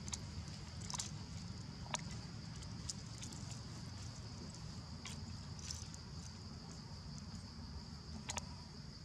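Insects trilling steadily at one high pitch over a low rumble, with about half a dozen short, sharp clicks scattered through.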